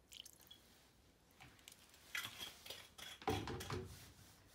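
Light clinks and knocks of a glass cooking-wine bottle being handled over a ceramic bowl, with a heavier knock about three seconds in.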